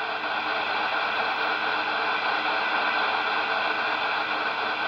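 Super Jopix 2000 CB radio's loudspeaker giving out steady static hiss with a faint steady test tone in it: a very weak signal, about −123 dBm, at the edge of what the receiver can still pick up.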